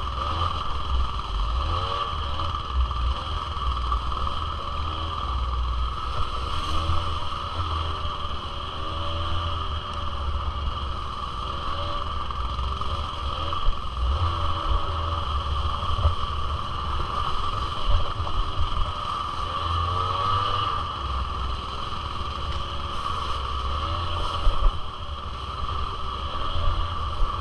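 Small single-cylinder two-stroke engine of a 1996 Suzuki LT80 ATV running, its revs rising and falling over and over as it rides.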